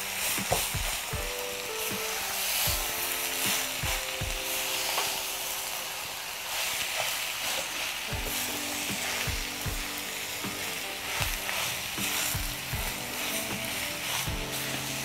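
Young jackfruit (polos) filling sizzling in a hot pan while a spatula stirs and scrapes through it, with frequent short clicks of the spatula against the pan. Soft background music with held notes plays underneath.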